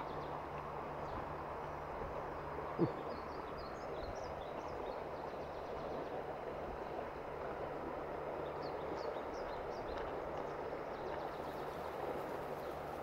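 Shallow stony river flowing, a steady rush of water over gravel. Two short runs of high chirps sound over it, and a single sharp knock comes about three seconds in.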